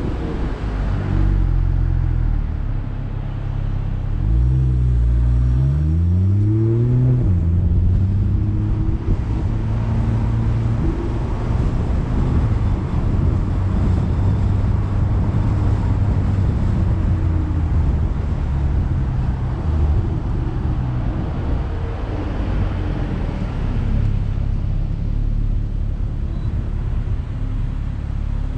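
Car engine heard through a hood-mounted camera: running low at a stop, then revving up as the car pulls away about four seconds in, the pitch rising until it drops at a gear change around seven seconds, then running steadily with tyre and road noise.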